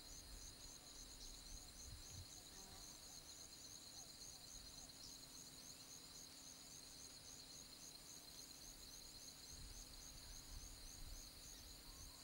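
Faint chorus of insects: a steady high-pitched buzz with rapid, evenly repeated chirps above it, and a few faint low rumbles now and then.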